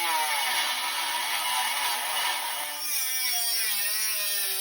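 Dremel rotary tool with a small cutoff wheel cutting sheet metal: a steady high-speed whine with grinding noise, its pitch wavering and dipping as the wheel is loaded in the cut.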